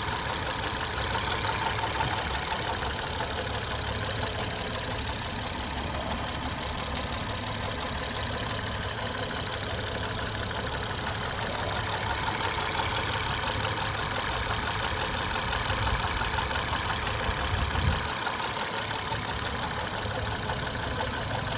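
2011 Acura TL SH-AWD's 3.7-litre V6 idling warm, steady, with a fast, light tapping mixed into the engine sound. The tapping is the unexplained knock that a dealership could not diagnose, and it is less pronounced once the engine is warm. There is a brief low bump near the end.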